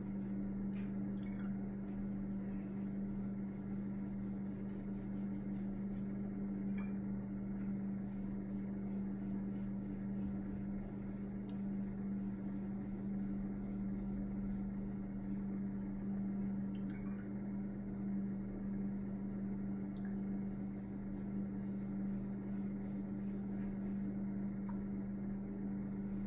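Steady low hum of room noise, with a few faint light clicks scattered through it.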